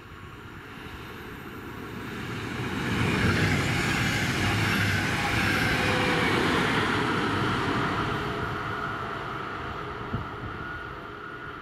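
Double-decker push-pull regional express with a DB Class 111 electric locomotive pushing at the rear, passing close by. Wheel and rail noise builds as the cab car approaches, is loudest as the coaches and locomotive go past about three to seven seconds in, then fades as the train moves away, leaving a steady high hum.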